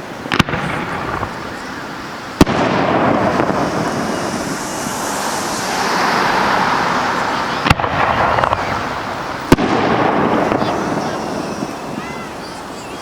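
Fireworks display: four sharp bangs of bursting shells, about a second in, a couple of seconds later, and two close together near the end, over a continuous rush of noise that swells through the middle.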